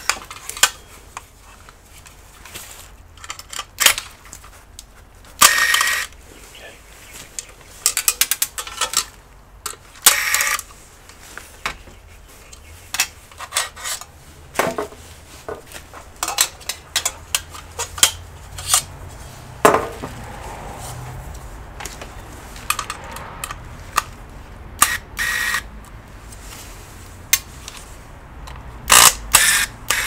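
Scattered sharp clicks, taps and clatters of metal parts and tools being handled as a hard drive in its caddy is taken out of an all-in-one PC's metal chassis. A faint low hum runs under the second half.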